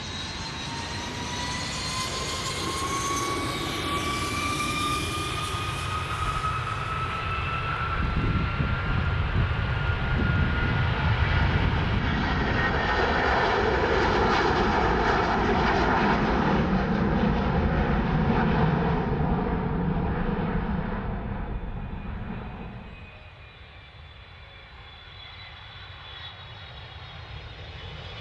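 Jet aircraft engines spooling up for takeoff with a rising whine, building into a loud steady roar of takeoff thrust that drops away sharply about 23 seconds in, leaving a quieter rumble.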